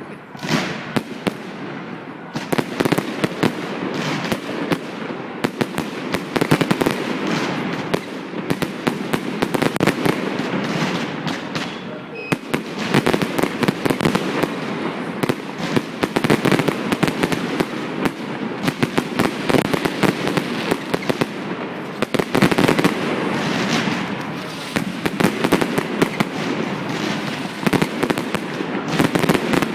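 Fireworks going off in a dense, continuous barrage: many rapid bangs and crackles overlapping, with no pause.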